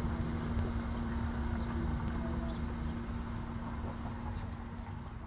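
Steady low mechanical rumble with a constant hum, like a motor or distant traffic, with a few faint high chirps. It begins to fade out near the end.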